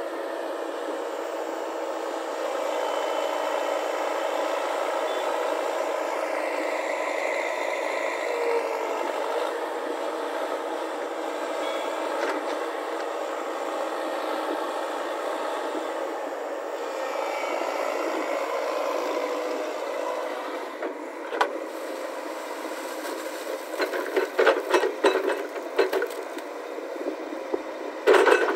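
JCB tracked hydraulic excavator running steadily as it digs mud. In the last several seconds, clanking and rattling knocks come thick and fast as the loaded bucket is lifted and swung.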